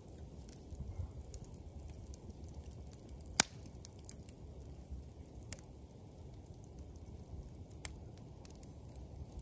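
Wood campfire burning with a steady low rumble and scattered crackles and pops. One sharp, loud pop comes about three and a half seconds in.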